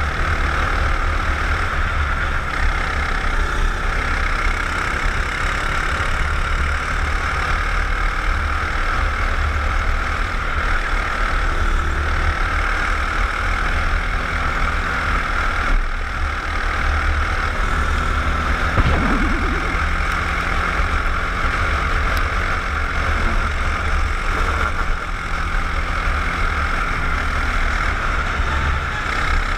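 Racing kart's engine running steadily at speed, heard close up from on board, with a constant rushing noise.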